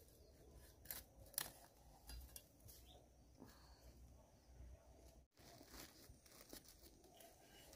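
Near silence with a few faint, scattered clicks and crackles. The sound drops out completely for an instant about five seconds in.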